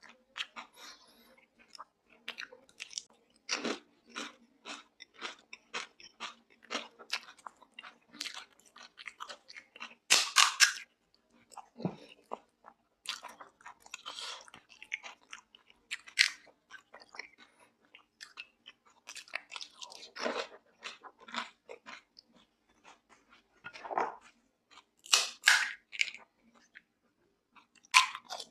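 Close-miked eating: crisp pani puri shells crunching between the teeth and wet chewing, a steady run of quick small clicks with louder crunches about ten seconds in and again near the end.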